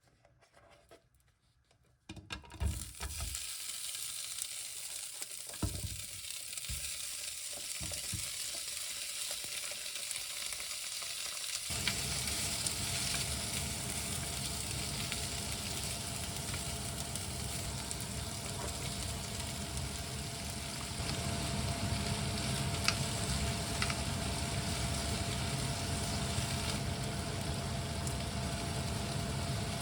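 Food sizzling as it fries in a pan, starting about two seconds in, with a few knocks. About twelve seconds in a steady low hum with a faint whine joins in under the sizzle.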